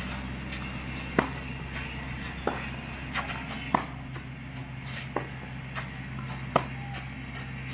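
Tennis rally on a clay court: the ball is struck back and forth, five racket hits about 1.3 s apart. The near player's strokes are louder than the far player's, with fainter bounces between them, over a steady low hum.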